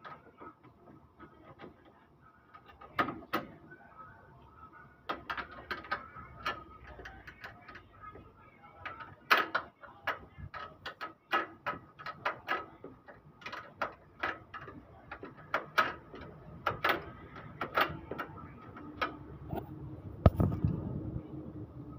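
A metal wrench working bolts on a car's radiator support: a run of irregular metallic clicks and knocks as the bolts are turned, with a louder knock about twenty seconds in.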